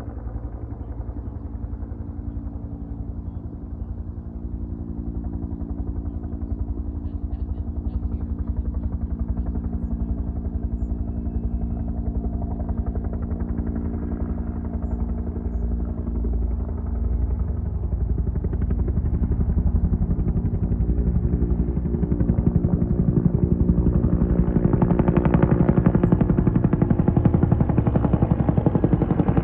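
Helicopter flying low overhead, its rotor blades beating in a fast, even rhythm over a steady engine tone. It grows louder through the clip and is loudest near the end.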